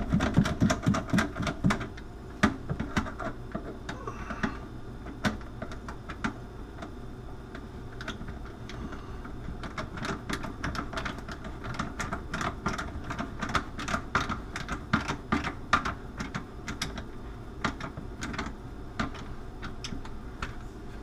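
Irregular runs of sharp clicks from a ratcheting hand tool, likely a screwdriver, turning a hose clamp on a black drain hose. The first two seconds are louder, with knocks from the hose and fittings being handled.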